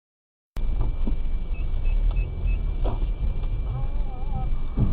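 Silent for about half a second, then the low rumble of a car running in traffic, picked up inside the cabin by a dashcam, with a faint steady high whine. A run of short high beeps sounds twice, with a few light knocks.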